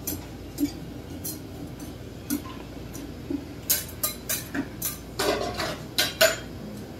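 Metal scrapers clinking and scraping on the steel cold plate of a rolled ice cream maker as the frozen base is spread thin. Scattered sharp clinks, coming thicker and faster in the second half.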